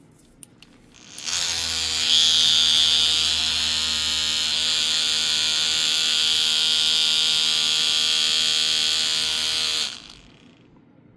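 Handheld cordless paint shaker buzzing as it agitates a dropper bottle of paint with a shaker ball inside. It starts just over a second in, runs at a steady pitch, and cuts off about ten seconds in.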